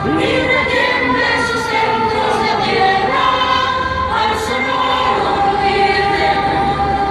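A choir singing with musical accompaniment, in long held notes that change pitch every second or so.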